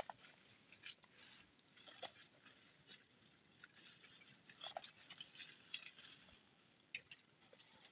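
Near silence, with a few faint, scattered ticks and crackles.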